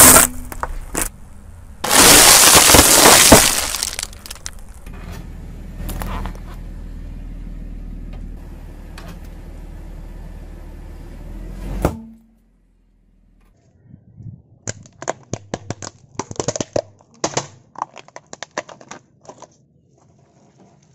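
Objects being crushed one after another under a car tyre: a loud burst of crunching, then a longer stretch of pressing with a few sharp cracks. After a brief quiet comes a quick run of crackling snaps.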